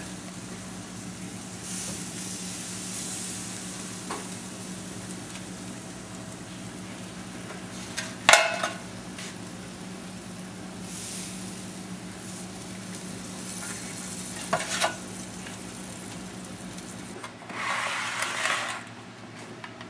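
Beef tri-tip sizzling over a grill, a steady hiss over a low hum, broken by a sharp metallic clatter about eight seconds in and a couple of knocks near fifteen seconds, from tongs and a stainless steel pan as the meat is lifted off to rest. Near the end there is a short, louder burst of scraping noise.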